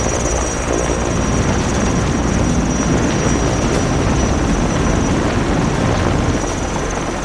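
Sky Crane heavy-lift helicopter running close by: dense rotor chop with a steady high turbine whine above it.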